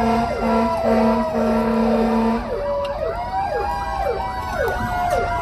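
Emergency vehicle sirens: one siren yelping in rapid falling sweeps, about three a second, over a slower wailing tone. A horn sounds in short repeated blasts until about halfway, when it stops.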